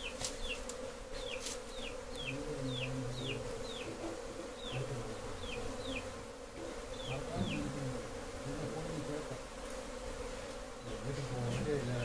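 A honey bee colony buzzing with a steady hum as it is moved from its wild nest into a wooden hive box. In the first half, a run of short, high, falling chirps sounds over the hum.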